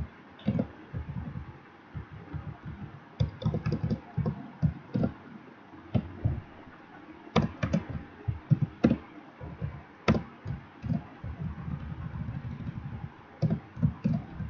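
Typing on a computer keyboard: irregular keystrokes in short runs, with a few louder taps.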